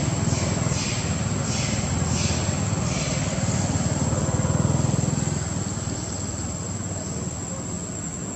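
Distant engine drone that builds to a peak about five seconds in and then fades away as it passes. A high hissing pulse repeats about every two-thirds of a second through the first three seconds.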